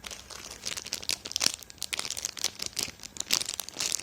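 Plastic wrapping of a squishy toy crinkling as it is handled and turned over, a run of irregular crackles.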